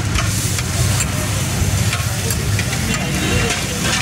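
Food sizzling on a street-stall griddle, with scattered sharp clicks, over a steady low rumble of vehicle engines and traffic.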